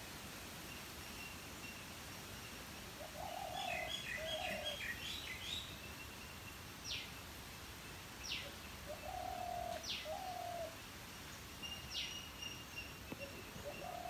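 Wild birds calling: a dove coos a two-part phrase twice, and a third begins right at the end. A quick run of higher chirps comes about four seconds in, and four sharp, falling whistled notes come spaced through the middle. A faint, steady high tone lies underneath.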